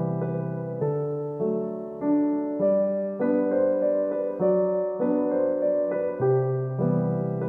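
Gentle background piano music, a new note or chord struck about every half second and fading.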